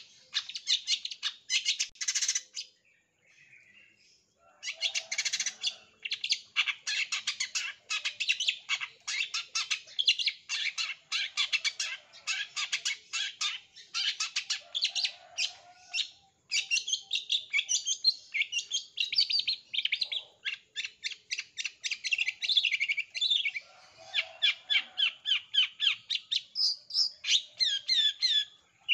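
Long-tailed shrike (cendet) in full song, chattering fast strings of short, high, rapid-fire notes. It breaks off briefly about three seconds in and again about halfway through.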